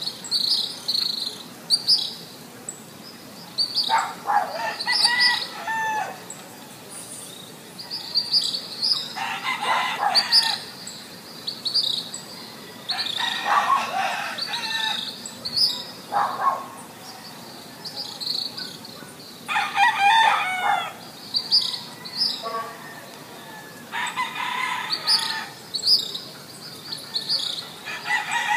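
A rooster crowing over and over, about six crows spaced roughly four seconds apart, while small birds keep up short high-pitched chirps between them.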